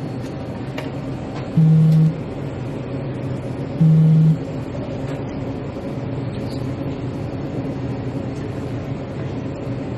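Hot water pouring steadily from a convenience-store hot water dispenser into an instant ramen cup. Twice in the first half, about two seconds apart, a short low buzz of about half a second sounds louder than the pour.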